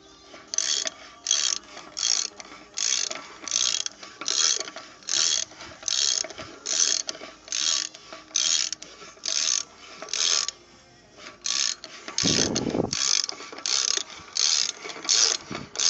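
Ratchet wrench clicking in short, evenly repeated strokes, about one and a half a second, as a spindle nut socket turns off the inner spindle nut on a 1978 Ford Bronco's front axle. A brief duller clunk comes about twelve seconds in.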